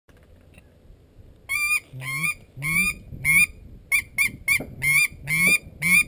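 A rapid series of about ten loud, honking waterfowl calls, starting about one and a half seconds in, spaced roughly half a second apart and quickening near the end.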